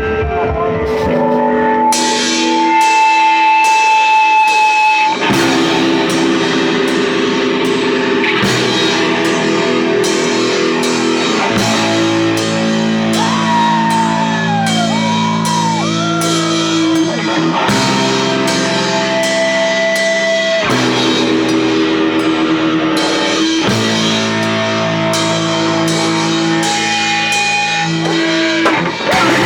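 Rock music with guitar and drum kit; a guitar line bends up and down in pitch about halfway through.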